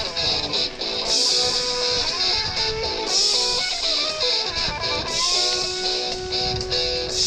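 Rock music led by electric guitar, with no singing.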